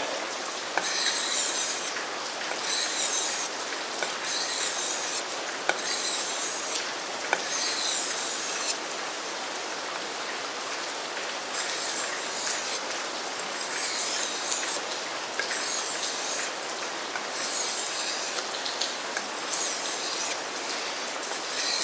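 Becker BK7 knife blade drawn in long strokes along the finer side of a two-sided sharpening stone. There are about ten separate scraping strokes, roughly one every second and a half, with a short pause about halfway through.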